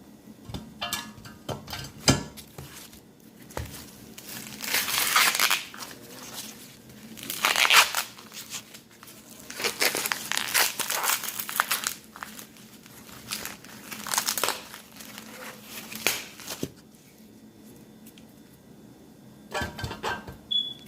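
Husks being torn and peeled off an ear of corn: a series of tearing, crinkling pulls with short pauses between them.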